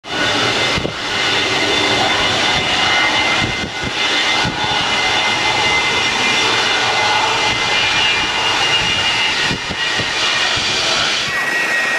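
McDonnell Douglas MD-80's rear-mounted Pratt & Whitney JT8D turbofans running: a loud rush of jet noise with a steady high-pitched whine on top. The sound jumps briefly at a few points, as at edits between takes.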